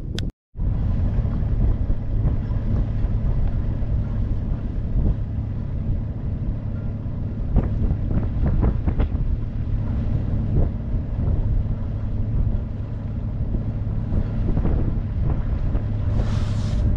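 Sailboat's inboard engine running steadily under way, a constant low hum, with wind buffeting the microphone.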